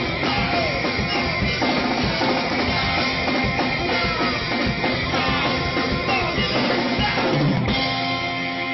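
Live rock band playing: drum kit, electric guitar and bass guitar with a singer. A little before the end the drums stop and a final chord is left ringing.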